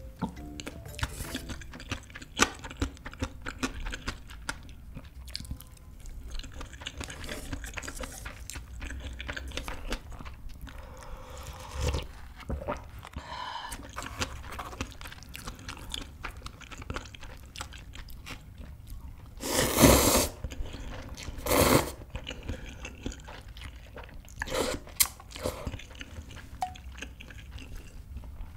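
Close-miked eating sounds: chewing a rice burger of stir-fried kimchi, ham, cheese and tuna, and yukgaejang cup ramen noodles, with many small wet mouth clicks. Two louder noodle slurps come about two thirds of the way through.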